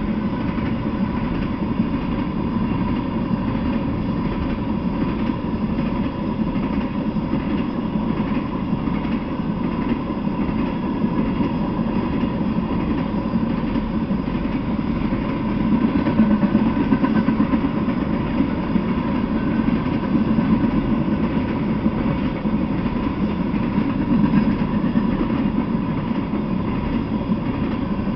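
Freight train of tank cars rolling past: a steady rumble of wheels on the rails, with a thin steady whine through it.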